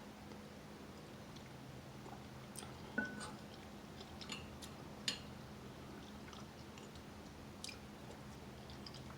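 Close-up chewing and mouth sounds of someone eating soup, with a few faint short clicks, the loudest about three seconds in, over a low steady hum.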